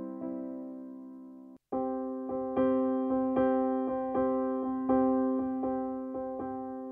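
Background music: an electric piano playing repeated, decaying chords in a steady pattern, cutting out completely for a moment about a second and a half in before resuming.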